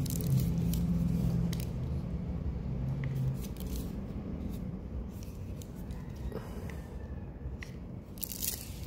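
Hands turning over a small plastic pocket drone: light rubbing and scraping on its plastic shell with a few sharp clicks, over a low rumble that eases after about three seconds.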